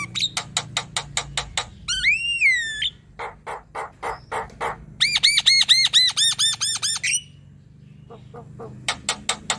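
Javan myna calling: fast runs of dry clicks, one rising-and-falling whistle about two seconds in, and a quick series of short repeated whistled notes in the middle, then a brief pause before a few more clicks near the end.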